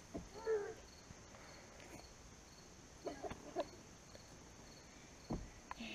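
Insects chirring steadily in the background. A couple of brief voice sounds come through, and there is a low thump about five seconds in.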